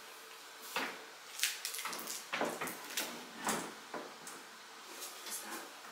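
A series of separate knocks and clunks at uneven intervals, the sound of hard objects being handled and set down.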